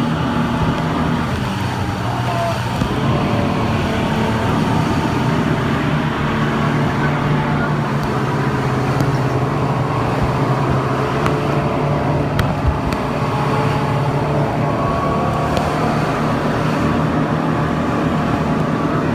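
Speedboat under way: its engines running with a steady low drone, and water and wind rushing past the hull. Two brief knocks about two-thirds of the way through.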